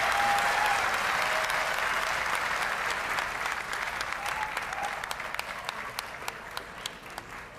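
Audience applauding, loud at first and thinning to scattered separate claps toward the end.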